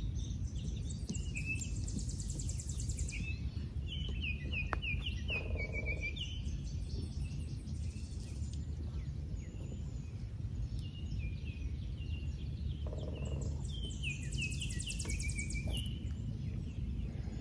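Songbirds singing, with one bird twice giving a phrase of quick stepped chirps that ends in a buzzy trill, over a steady low background rumble.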